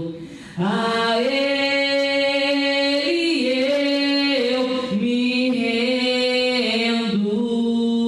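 A woman singing a slow worship song into a microphone, with long held notes in phrases and no instruments heard. The singing starts about half a second in after a short pause.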